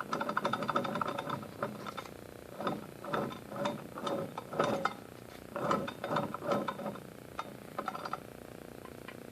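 Yamaha RX50 two-stroke motor with bad bearings, giving a rough, clicking, grinding rattle in four or five bursts of about a second each.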